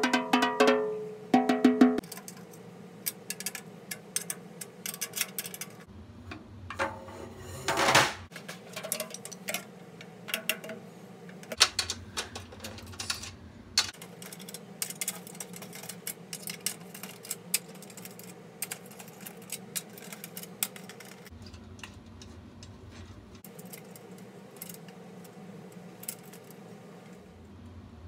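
A few snare drum strokes in the first two seconds, the drum ringing with a clear pitch. Then a long stretch of scattered small clicks, taps and rattles as the drum is handled and its head retuned, with one louder knock about eight seconds in.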